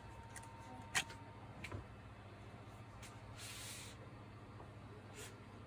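Quiet handling of the plastic motor housing of a Makita GA9010C angle grinder: a sharp click about a second in, a fainter click shortly after, and a brief soft hiss of hands rubbing over the housing near the middle.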